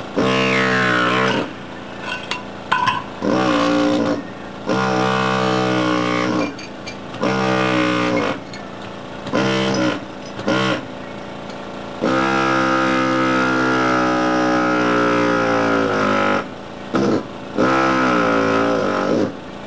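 Gison GPW-4500 pneumatic air hammer, rated at 4,500 blows a minute, driving a chisel bit to knock ceramic tiles loose from a floor. It gives a steady buzz in about nine on-off bursts, most lasting a second or so and one running about four seconds past the middle. The pitch sags as each burst starts and stops.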